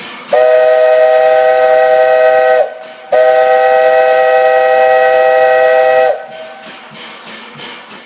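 Three-chime (tri-tone) steam whistle of the LNER A4 locomotive Bittern, sounding two long blasts of one steady chord, the second a little longer than the first. Steam hisses before, between and after the blasts.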